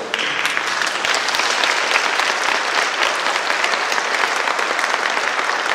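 Audience of many people applauding steadily.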